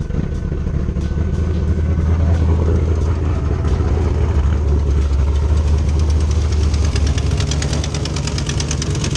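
A 2010 Camaro SS's cammed 6.2 L V8 with long-tube headers catches and idles steadily. From about six seconds in, a fast, even ticking grows over the exhaust note. The engine is running with a blown header gasket, a large exhaust leak, and a misfire.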